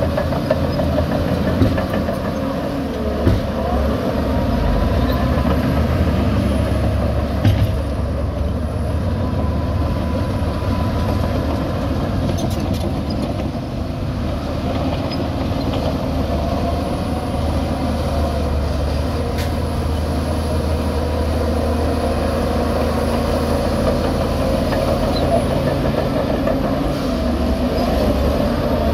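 Shantui DH17 C2 bulldozer's diesel engine running steadily under load as it pushes dirt. A few short metallic clanks come in the first eight seconds or so.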